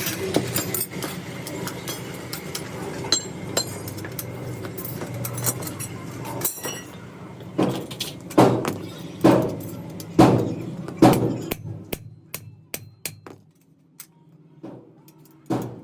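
Metal parts being worked with a hammer: clattering and clinking at first, then about five hard ringing blows roughly a second apart past the middle, followed by lighter quick taps.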